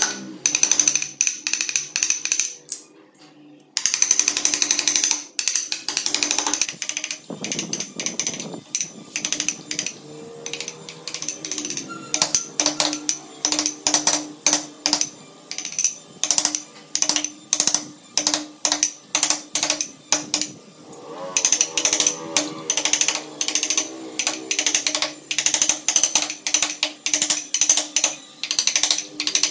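Carving chisel driven into wood with repeated sharp taps, about two to three a second, with a short pause near the start.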